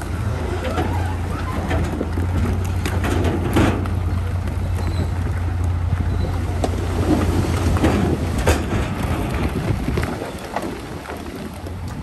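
Heavy construction machine's diesel engine running steadily, with scattered knocks and clatter of stone. The engine hum falls away about ten seconds in.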